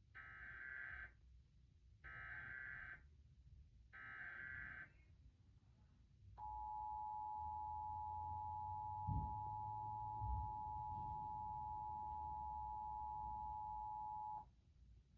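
Emergency Alert System test tones: three one-second bursts of digital SAME header data, a second apart. Then, after a short gap, the EAS attention signal, a steady two-tone alert held for about eight seconds that cuts off sharply.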